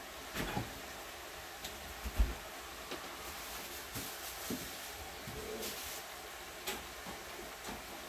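Scattered knocks and clicks of kitchen work as food is prepared, with one louder low thump about two seconds in and a short rustle near six seconds.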